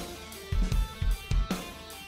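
Background rock music with a drum kit and guitar, the kick drum beating several times.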